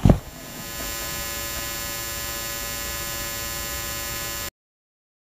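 A short thump as the flying wing hits the grass on a hard landing, then a steady electrical hum from the wing's onboard electronics, picked up by its camera as it lies still. The hum cuts off abruptly about four and a half seconds in.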